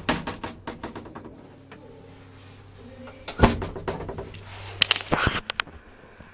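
1973 Bassetti traction elevator: its doors bang shut and rattle, followed by a steady low mains hum, a heavy thump about three and a half seconds in, and a cluster of clicks about five seconds in.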